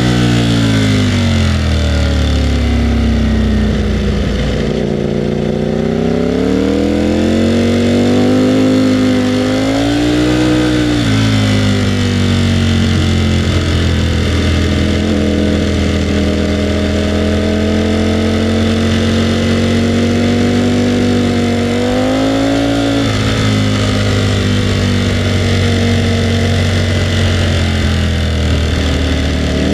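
Ducati Panigale V4R's 998 cc V4 engine running while riding. The revs fall at first, then rise and ease off in turn, and twice climb and drop sharply as if shifting gear.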